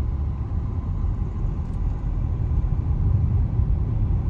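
Steady low rumble of tyres and engine heard inside a moving car's cabin, driving over a bumpy road surface.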